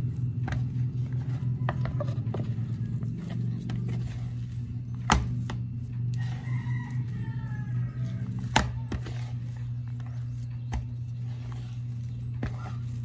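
Wooden spoon stirring and working stiff rye-flour dough in a plastic mixing bowl, with sharp knocks about five and eight and a half seconds in. A steady low hum runs underneath.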